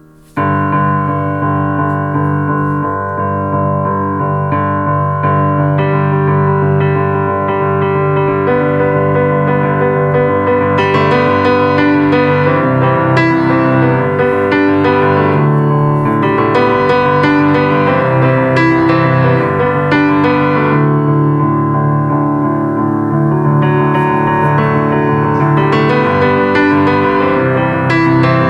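Piano-led music played through a homemade Bluetooth speaker with two 4-inch Dayton Audio woofers and a Dayton Audio tweeter, heard in the kitchen as a test of how the room shapes its sound. The music comes in suddenly just after the start and plays on steadily.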